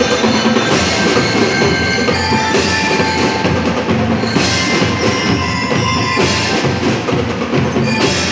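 Lyre and drum band playing: bell lyres carry a tune over the steady beat of bass and snare drums, with a bright crash about every two seconds.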